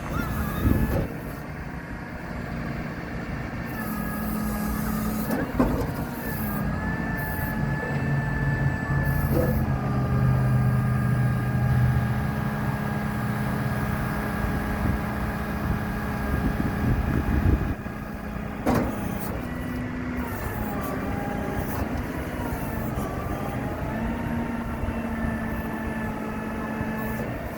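Work truck's engine running with its PTO engaged and driving the hydraulics, a steady whine whose pitch steps up and down several times as the load changes. There is a sharp knock about two-thirds of the way through.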